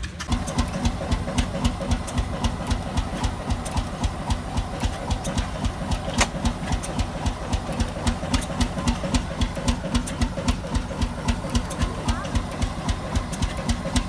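1919 Fairbanks-Morse 75 hp two-cylinder diesel engine running steadily, its exhaust beating evenly about three times a second.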